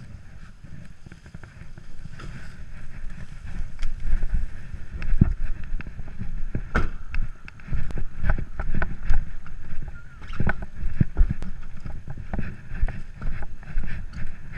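Wind buffeting and handling rumble on a body-worn action camera's microphone while walking, with scattered knocks and rustles throughout.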